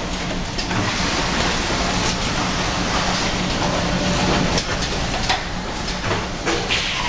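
Automated case-packing line running: steady machine noise from conveyors and a pick-and-place gantry, with scattered clicks and knocks as the grippers work.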